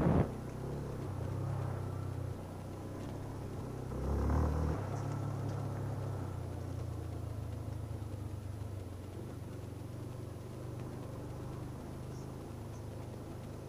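Yamaha YBR250's single-cylinder four-stroke engine running at low, steady revs on the move, with a brief loud thump right at the start and a short swell in engine sound about four seconds in.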